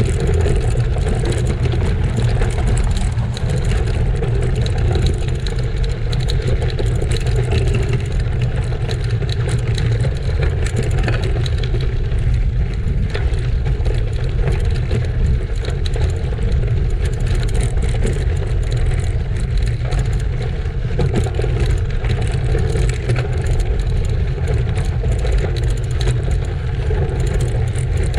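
Steady wind rumble on the microphone during a gravel bike ride, with a fine crackle of bicycle tyres rolling over gravel and small clicks and rattles from the bike.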